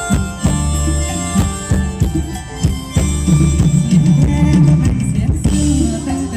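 Loud live Thai ramwong dance music from a band over a PA: a drum kit keeps a steady beat under held, sustained tones.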